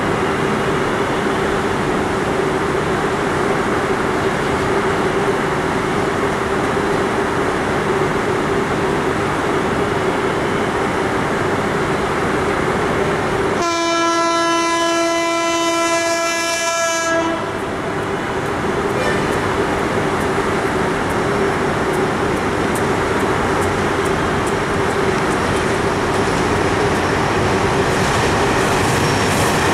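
Diesel locomotive of a short passenger train running steadily as it approaches, with one long horn blast of about three and a half seconds midway. Near the end, wheel clicks over the rail joints begin as it draws close.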